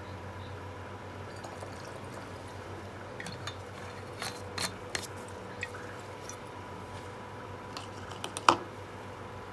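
Liquid poured from a bottle through a plastic funnel into a glass bottle, dripping with scattered small clicks, and one sharp knock about eight and a half seconds in, over a faint steady hum.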